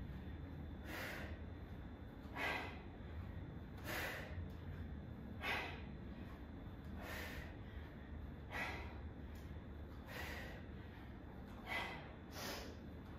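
A woman's short, forceful exhales, one with each two-handed kettlebell swing, coming evenly about every second and a half over faint room hum.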